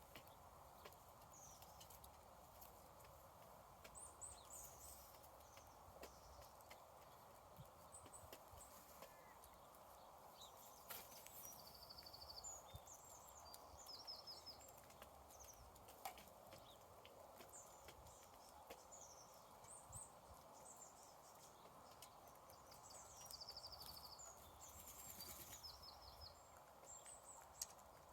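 Faint small birds chirping, with short high notes and quick trills coming again and again, over a steady soft hiss and scattered light clicks.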